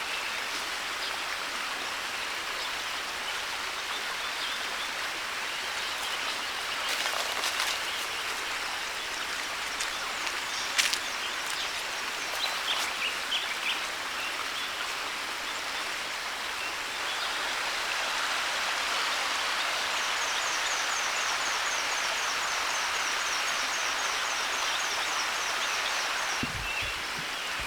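Flowing river water rushing steadily, with a few sharp clicks, the loudest about eleven seconds in. A rapid series of high chirps, about five a second, runs for several seconds in the latter part.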